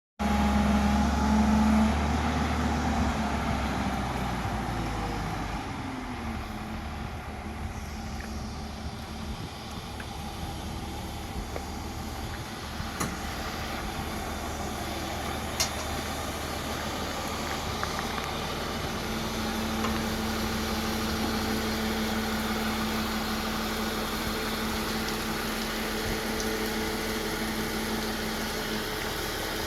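Heavy diesel machine engine running, loudest in the first couple of seconds, dropping in pitch about five seconds in, then running steadily.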